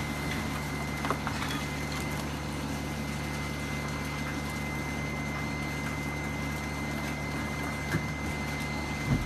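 Steady machine hum with a thin high whine held over it, and a few faint clicks.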